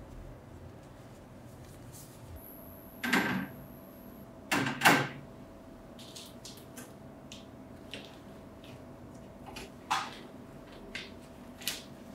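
Lid of a metal sandblasting cabinet being handled: two loud knocks and scrapes a few seconds in as it is opened, then lighter clicks and a sharper knock about ten seconds in as it is lowered shut.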